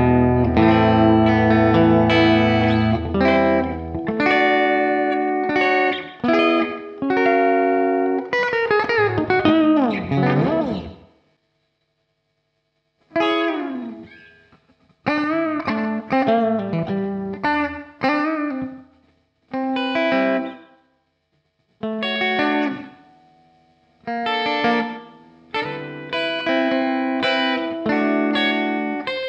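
Electric guitar played through amp-simulation software (Guitar Rig) with effects: held chords at first, then single-note lead phrases with string bends and vibrato, broken by short pauses between phrases.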